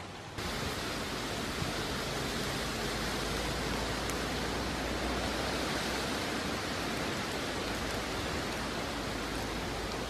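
A steady, even rushing hiss with no distinct events, starting abruptly about half a second in.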